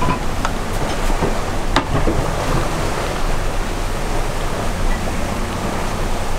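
Steady rush of wind and water aboard a sailing yacht under way at about 7.5 knots in 20 knots of breeze: the wake hissing along the hull under low wind buffeting on the microphone, with a couple of small sharp clicks about two seconds in.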